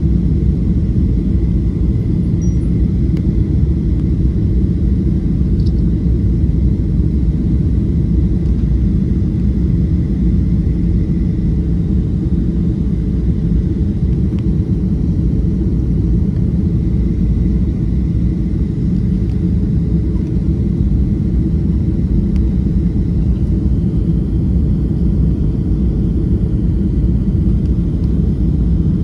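Boeing 737-500 cabin noise heard from a window seat over the wing on descent toward landing: a steady, loud rumble of the CFM56-3 engines and airflow, with a faint steady whine above it.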